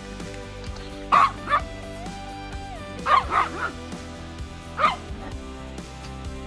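Chihuahuas yipping while they play-fight: two sharp yips about a second in, a quick run of three around three seconds, and one more near five seconds, over steady background music.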